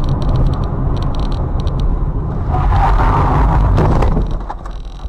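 Car's engine and tyre rumble heard from inside the cabin, with a louder rushing noise from about two and a half seconds in. The noise dies down near the end as the car brakes to a stop.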